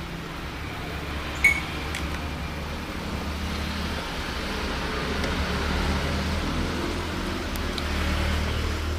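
Steady low mechanical hum with a haze of noise, swelling a little past the middle, and one short click about a second and a half in.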